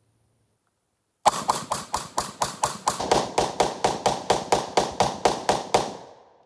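Czech Small Arms Vz58 semi-automatic rifle in 7.62×39 mm firing a rapid string of about twenty shots, roughly four to five a second, starting about a second in. The echo trails off after the last shot.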